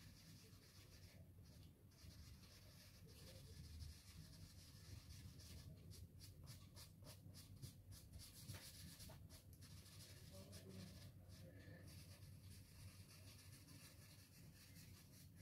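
Faint scratching of a yellow soft pastel stick rubbed back and forth across paper in shading strokes, the strokes coming quicker from about six seconds in.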